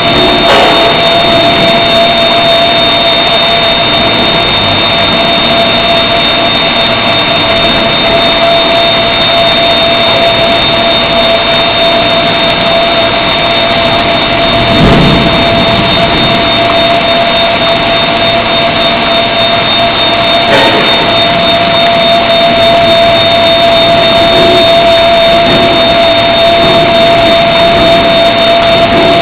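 Induction hardening machine running as a shaft scans through the heating coil: a steady whine holding two pitches, one middle and one high, over the hiss of the quench water spraying onto the hot shaft. A brief knock sounds about halfway through and another a few seconds later.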